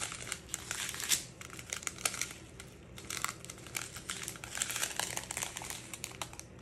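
Strip of small plastic zip bags of diamond-painting drills crinkling and rustling as it is handled: an irregular run of crackles, the sharpest about a second in.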